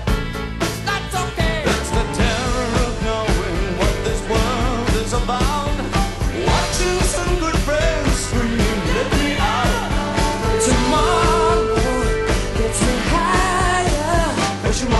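Rock song with a sung vocal over a steady drum beat and bass.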